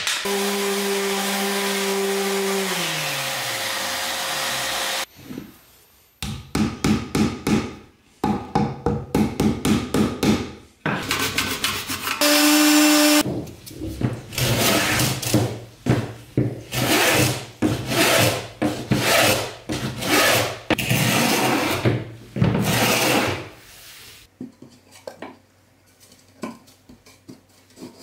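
Woodworking tool sounds in sequence on walnut. First a power tool's motor runs and winds down about three seconds in. Then come quick back-and-forth hand-saw strokes, and after that a run of longer hand-plane strokes shaving the walnut panel.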